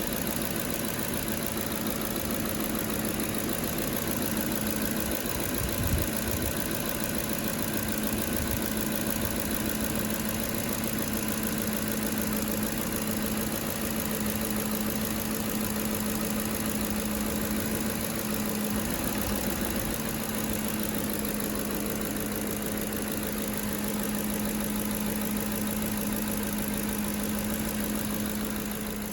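2010 Ford F-150's 5.4-litre Triton three-valve V8 idling steadily with freshly replaced spark plugs, running smoothly. A single brief knock about six seconds in.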